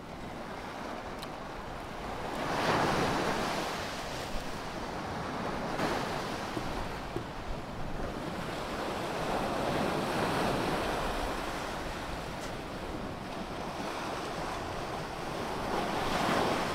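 Sea surf washing onto a beach, a steady rush that swells and fades slowly, loudest about three seconds in and again near the end, with some wind on the microphone.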